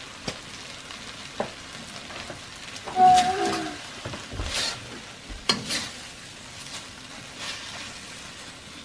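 Pad Thai rice noodles and broccoli sizzling in a steel wok while a metal spatula stirs and scrapes against the pan, with scattered scraping clicks. About three seconds in comes a brief pitched sound, the loudest moment. The noodles are nearly done, their sauce cooking off.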